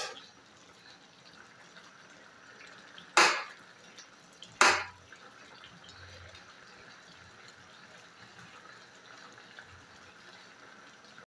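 Chicken adobo sauce simmering softly in a metal pan, while a metal spoon stirs and bastes the chicken, scraping against the pan twice about a second and a half apart.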